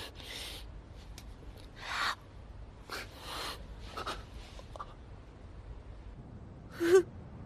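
Short sharp breaths and gasps, several in quick succession, then a brief muffled 'mm' vocal sound near the end.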